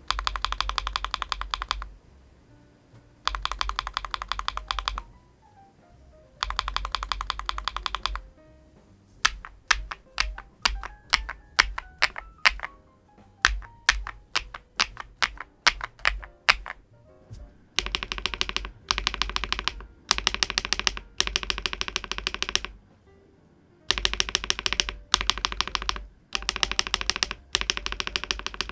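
Typing on a MonsGeek M2 V5 VIA mechanical keyboard with a gasket-mounted aluminium case. It opens with short runs of rapid keystrokes. Through the middle come single, separate key presses about one or two a second. It ends with more runs of fast typing broken by brief pauses.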